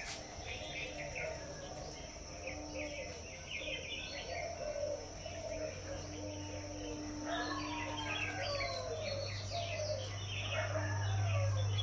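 Several small birds chirping and calling over and over in the surrounding trees. Under them runs a steady high-pitched hiss, and a low hum swells toward the end.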